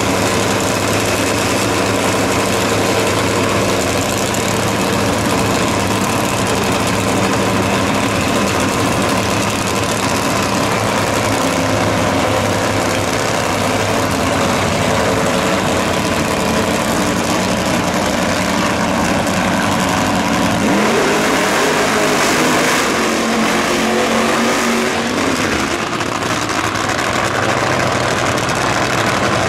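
Nostalgia funny car engines, supercharged V8s, running at a loud, steady idle. About twenty seconds in the engine note shifts as the cars move off toward the starting line.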